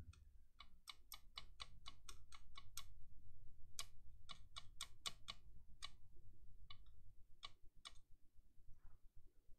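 Faint, quick clicks and ticks, a couple a second, from a soldering iron's tip working over fluxed pads on a hard-drive circuit board, reflowing them with leaded solder.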